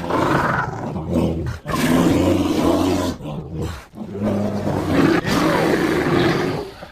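Made-up Carnotaurus dinosaur roar sound effect: three long, low roars in a row, each about two seconds, the last trailing off near the end.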